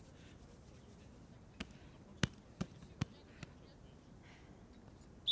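Five sharp slaps in quick succession, unevenly spaced, starting about a second and a half in; a short high chirp comes right at the end.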